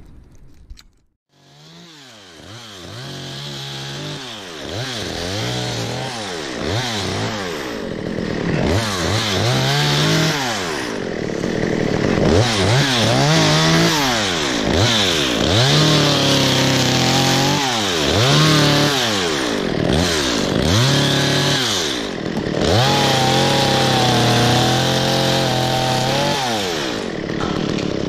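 Stihl two-stroke chainsaw coming in about a second in, then revved up and down again and again while cutting through dry fronds and branches, with longer stretches held at high revs under load.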